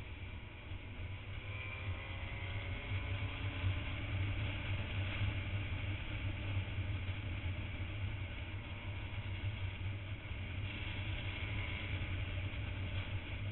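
Motorcycle riding at road speed: a steady low engine drone under wind rushing over the microphone, the engine pitch sliding a little in the first few seconds.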